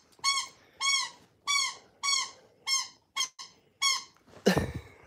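Squeaky dog toy being chewed by a Labrador puppy: a quick run of about eight short high squeaks, roughly two a second. A louder, lower-pitched sound comes near the end.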